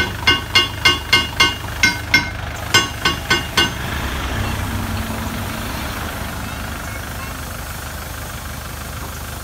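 Kubota L4508 tractor's diesel engine idling steadily. A sharp, ringing tick repeats about three times a second over it for the first few seconds, then stops.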